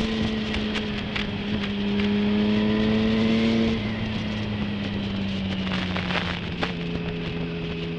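Motorcycle engine running under way, with rushing wind noise. About four seconds in, the engine note and level drop as the throttle comes off, and the pitch then slides slowly lower.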